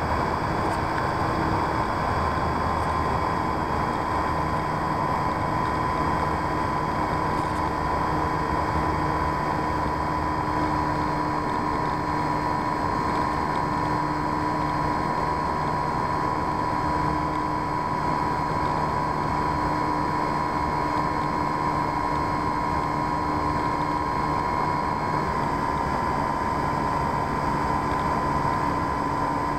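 Onboard sound of a radio-controlled P-51D Mustang model in flight: a steady motor-and-propeller whine over a rush of air, its pitch holding nearly constant with small shifts a few times.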